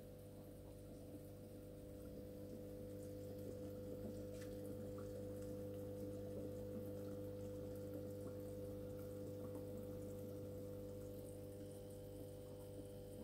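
Home aquarium running: a steady low hum with faint bubbling and trickling water from an air-driven sponge filter.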